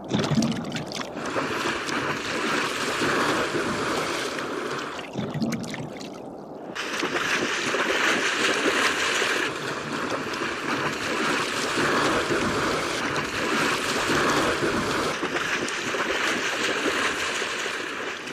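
Shallow river water splashing and churning as a brown bear charges through it hunting salmon. The sound eases briefly about five seconds in.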